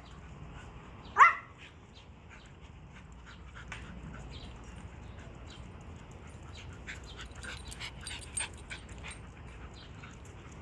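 A dog gives one short, sharp bark that rises in pitch, about a second in. Many light scattered clicks and taps follow.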